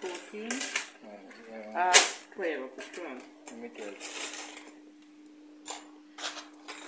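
Indistinct talking with sharp clicks and light metallic clinks as small steel fish hooks are handled and set down on a wooden counter, over a steady hum. The loudest click comes about two seconds in, with a few more near the end.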